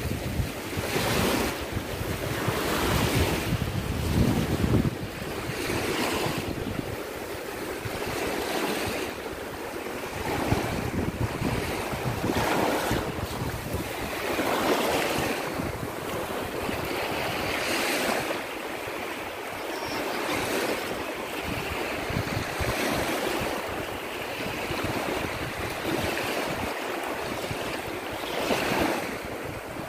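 Small sea waves washing up and draining back over a sandy shore in repeated swells, with wind rumbling on the microphone, heaviest in the first few seconds.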